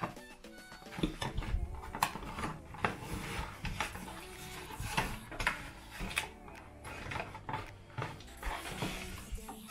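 A cardboard product box being opened and handled: irregular papery rustles and scrapes of the flaps, with light clicks and knocks as the pump bottles inside shift.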